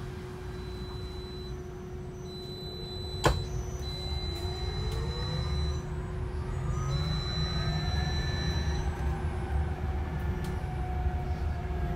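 Hydrogen fuel-cell electric double-decker bus heard from the upper deck, pulling away: its electric drive whine rises in pitch over a steady hum and a low rumble that grows louder. A single sharp knock about three seconds in.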